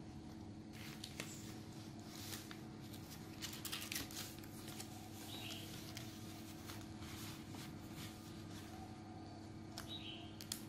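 Sheets of paper rustling and a plastic ruler clicking lightly as they are handled and laid out by hand, over a steady low hum. The clicks and rustles are busiest in the first few seconds, with another click near the end.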